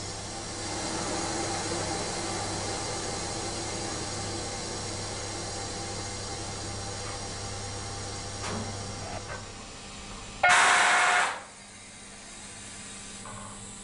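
Cab of a class 140 (E40) electric locomotive being readied: a steady low hum with a hiss, then a short, loud blast of escaping compressed air about ten and a half seconds in, lasting under a second.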